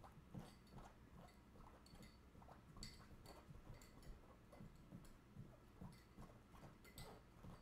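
Faint, irregular light taps and clicks, with a few sharper clicks about three seconds in and again near the end.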